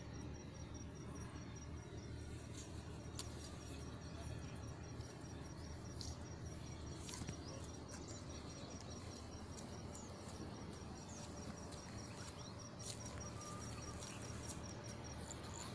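Faint outdoor ambience: an insect chirping in a rapid, even series of high pulses over a steady low rumble, with a few faint clicks.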